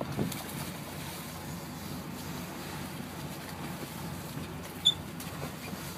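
Steady low rumble of a sportfishing boat's engine running, with wind and water noise. A single short, high chirp sounds about five seconds in.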